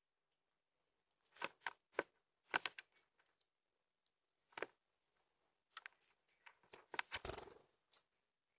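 A Eurasian magpie at the Ring camera: irregular sharp taps and knocks, a cluster about one to three seconds in, a single one near five seconds, and another cluster from about six seconds, ending in a longer, deeper rustle.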